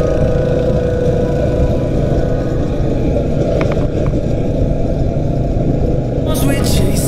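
Go-kart engine running steadily under way, mixed with a dense low rush of wind on the microphone. Music comes in near the end.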